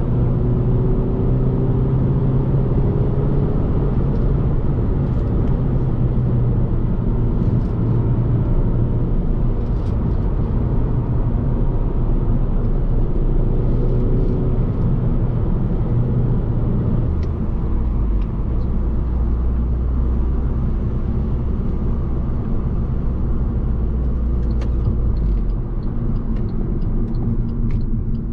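Alfa Romeo Giulietta 1.75 TBi turbocharged four-cylinder petrol engine running steadily under way, heard inside the cabin along with road noise. About two-thirds through, the engine note drops to a deeper pitch, and it eases slightly near the end.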